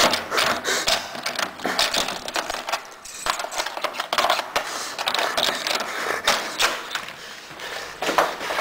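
Irregular clattering clicks and clacks, several a second.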